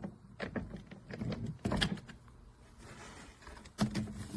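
A hardside carry-on suitcase being handled: a run of plastic clicks and clunks, with a louder knock about a second and a half in and more clicks near the end.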